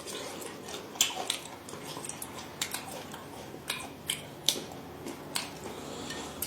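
A person chewing and biting food, heard as irregular sharp crunchy clicks about once a second.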